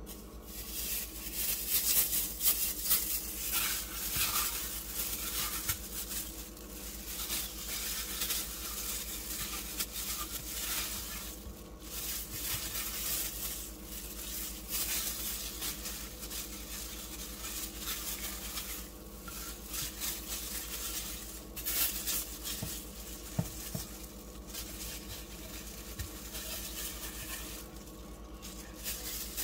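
Plastic-gloved hands rubbing and turning whole pompano fish in a wet marinade of lemon juice, olive oil and spices: wet rubbing and slapping with crinkling of the plastic gloves, swelling and fading in waves and loudest about two seconds in.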